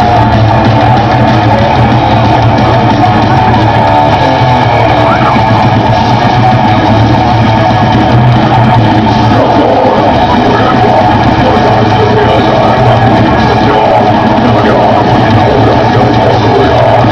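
Rock band playing live, with electric guitar and drums at a loud, steady level.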